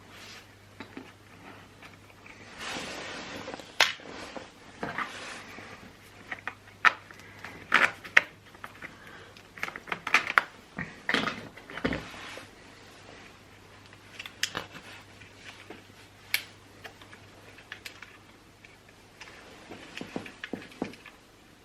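Irregular clicks, knocks and short scrapes of chainsaw parts, nuts and hand tools being handled as the saw is put back together, with a faint steady low hum underneath.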